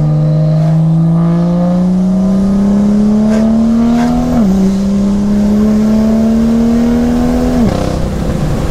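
BMW M2's N55 turbocharged straight-six, on an MHD Stage 2+ tune with a catless downpipe and M Performance exhaust, accelerating as heard inside the cabin. The revs climb steadily, drop sharply on an upshift about four and a half seconds in, climb again, then fall away near the end.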